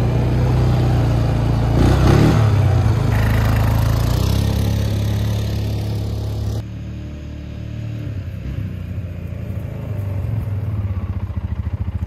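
2009 Polaris Sportsman 550 XP ATV's single-cylinder engine running. It briefly gets louder about two seconds in, drops suddenly in level a little past halfway, and then builds again with a pulsing note near the end.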